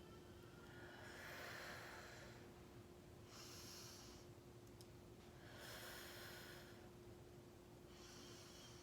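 A person's slow, deep breaths, faint and hissy, alternating in and out about every one to two seconds. A steady faint hum runs underneath.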